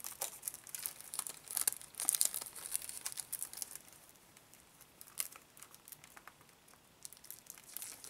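Plastic shrink-wrap on a CD being crinkled and torn off by hand, in irregular crackly bursts that are busiest over the first few seconds and die away after about five seconds.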